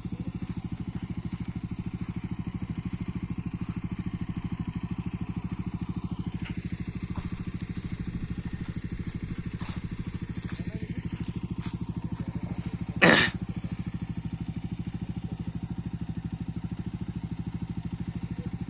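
Motorcycle engine idling steadily with an even low pulse. A brief loud sound cuts in once a little past the middle.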